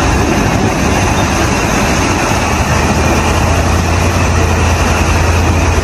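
Tow truck engine running steadily: a loud low hum with a wide, even rush of noise over it.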